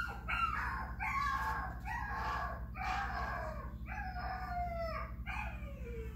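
Recorded animal calls played back to a dog: a string of about six wavering cries, the last one sliding down in pitch.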